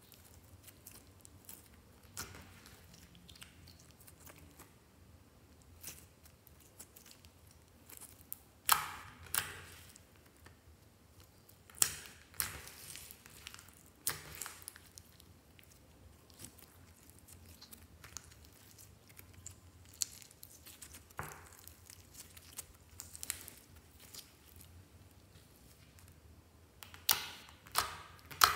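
Clear slime being squeezed and kneaded by hand as red colouring is worked in: soft wet squishing broken by a few sharp crackling pops as air pockets in the slime burst.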